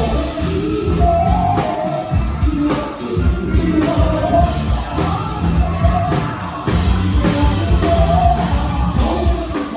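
A live band plays a hip-hop and funk groove: drums and heavy bass, with voices singing over the top.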